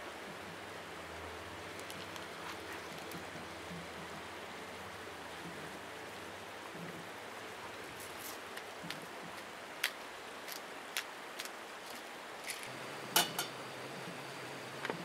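Steady outdoor hiss, with a scatter of small clicks and knocks from cooking gear being handled on a camp kitchen table in the second half. The loudest is a sharp metallic clink with a brief ring, about two seconds before the end.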